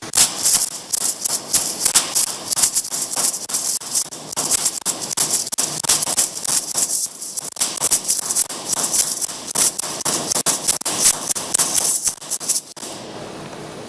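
MIG welding arc on 2.5 mm stainless steel, sputtering in an irregular crackle of sharp pops, as is typical of short-circuit transfer at about 19 V and 60–65 A. It cuts off about thirteen seconds in, leaving the welder's steady cooling-fan hum.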